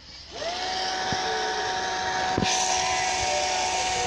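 A small electric motor switching on: its whine rises in pitch over about half a second, then runs steadily with a rushing noise. The hiss gets sharper about two and a half seconds in.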